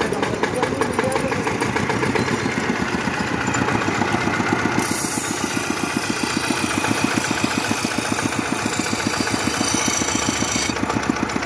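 Small single-cylinder stationary engine running with a steady, rapid chug, belt-driving a grinding wheel. From about five seconds in, a metal blade is ground on the wheel, adding a hissing grinding noise that breaks off briefly near the end.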